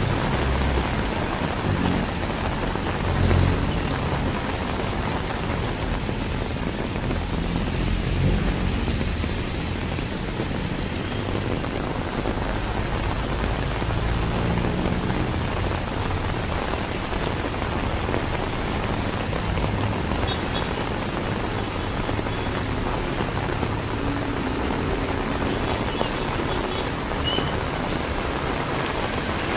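Heavy rain pouring steadily, with a low rumble coming and going underneath.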